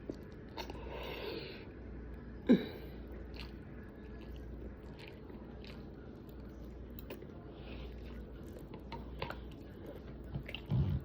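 Close-miked chewing and mouth noises of a person eating, with scattered soft clicks and smacks. One short louder mouth sound comes about two and a half seconds in.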